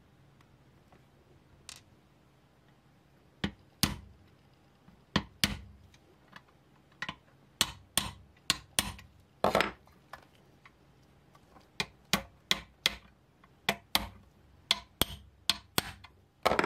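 A series of irregular sharp clicks and light knocks of small hard objects, beginning a few seconds in and coming more often in the second half.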